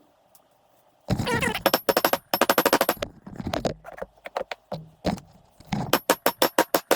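Powered impact tool hammering in four short bursts of rapid knocks, about ten a second, against the rotor and hub of a Nissan 240SX front hub assembly to break the stuck rotor loose.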